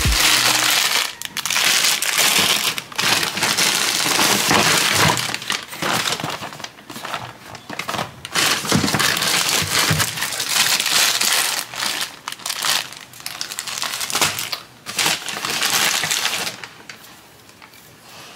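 Plastic grocery bags rustling and crinkling in irregular bursts as items are pulled out of them, stopping about two seconds before the end.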